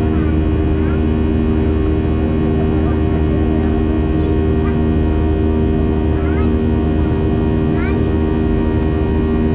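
Steady engine drone of a Boeing 737 heard from inside the passenger cabin as it climbs after take-off: a loud, even roar with a low hum and several steady tones running through it.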